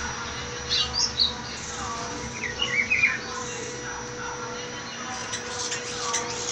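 Pitiguari (rufous-browed peppershrike) singing: short groups of sharp whistled notes about a second in, again around three seconds in, and near the end. A faint steady hum runs underneath.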